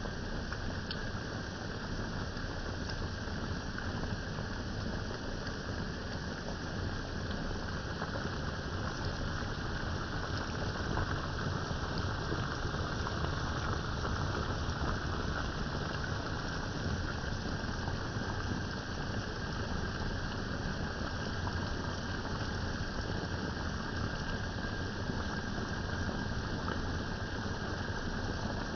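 Pot of bihon rice noodles with vegetables and meat simmering: a steady bubbling hiss with no break.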